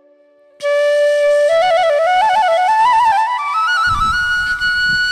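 Background music: a flute holds a note, then plays an ornamented melody that climbs in pitch, starting after a brief near-silent pause about half a second in. A low rumble joins near the end.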